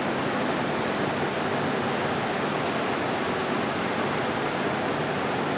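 Steady, even rushing noise with no gusts, breaks or distinct events.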